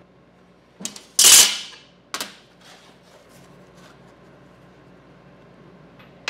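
Steel angle and round steel tube clanking on a perforated steel fixture table as they are set in place: light knocks about a second in, one loud ringing clank just after, another knock a moment later, and a sharp clank at the very end.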